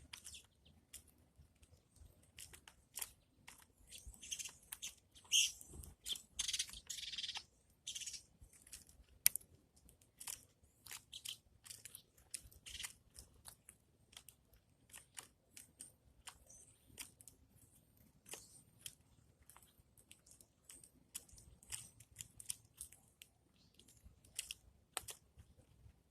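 A small bird chirping softly, with a denser run of high chirps about four to eight seconds in, among many quick, sharp clicks and crunches.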